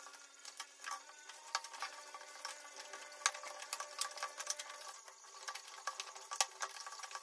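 Hands kneading roti dough in a plastic bowl: a run of irregular soft taps and clicks as the dough is worked and the bowl shifts on the counter.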